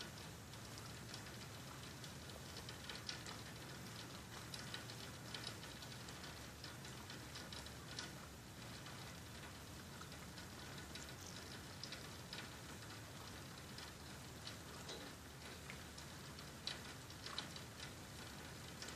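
Faint rain pattering, with scattered irregular ticks of drops striking a nearby surface.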